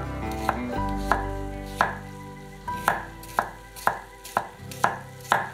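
Chef's knife chopping red bell pepper strips on a wooden cutting board: about nine sharp knocks of the blade striking the board, spaced irregularly at first and then coming about two a second in the second half.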